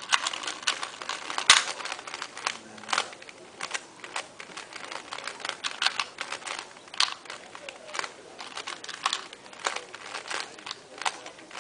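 A 2x2 puzzle cube being turned quickly by hand: a run of irregular plastic clicks and clacks as its layers snap round, several a second.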